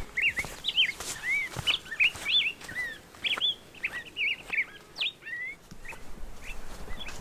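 Small birds chirping: a quick run of short chirps that rise and fall in pitch, several a second, busiest for the first five seconds and then thinning out.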